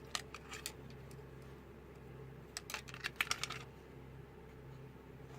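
Light clicks and taps from handling the dismantled analog multimeter's plastic case and parts: a short run of clicks at the start and a louder, denser run about three seconds in.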